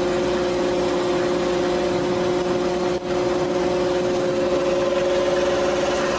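Net-Op hydraulic gillnet hauler on a fishing boat running steadily as it hauls the net aboard: a steady machine drone with a couple of held whining tones, briefly interrupted about three seconds in.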